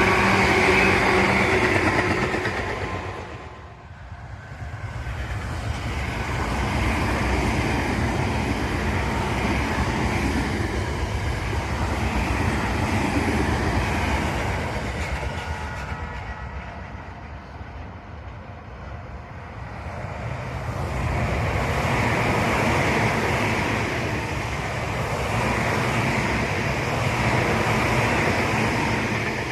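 Tobu Tojo Line electric trains passing. A steady motor whine fades away in the first few seconds. Then the rolling and running noise of a train swells, eases in the middle, swells again and cuts off suddenly near the end.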